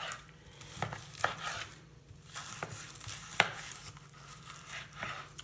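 A long knife slicing between the bones of smoked pork spare ribs on a wooden cutting board. Several sharp knocks of the blade hitting the board are heard, the loudest about three and a half seconds in.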